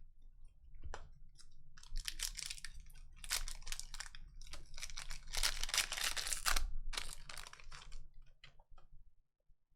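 Trading cards being handled and slid past one another by hand: a run of short, dry rustling scrapes over a faint steady low hum.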